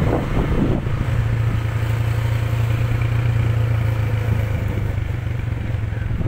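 Vehicle engine running steadily, heard from on board while driving along the road, a constant low hum with road and wind noise.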